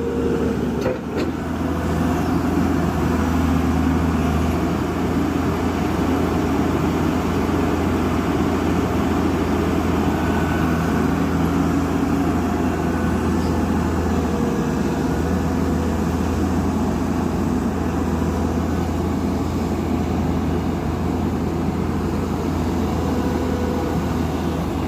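Diesel engine of heavy construction machinery running steadily, a continuous low drone at an even pitch.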